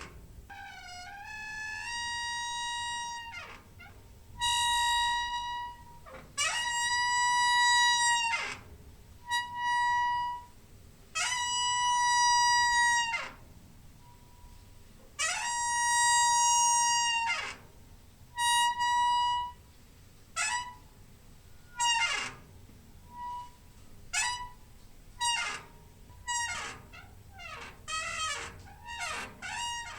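Creaking door hinge squeaking over and over as the door swings: long, steady, high squeaks of a second or two that slide in pitch at their start and end, then shorter, quicker squeaks that slide up and down in the last third.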